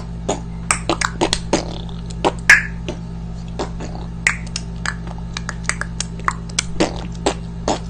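Irregular series of sharp mouth clicks and pops made as a vocal sound-effect imitation, the loudest pop about two and a half seconds in, over a steady low hum.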